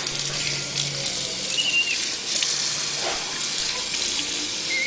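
Running tap water splashing steadily, with two brief high squeaks, one about a second and a half in and one near the end.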